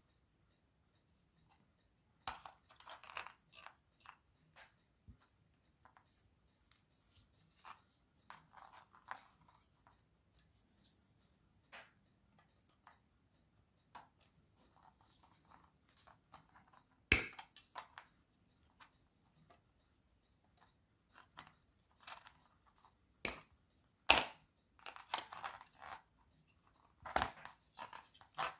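Small tools and electronic parts being handled on a workbench: scattered light rustles and scrapes, with a few sharp clicks, the loudest about halfway through and several more near the end.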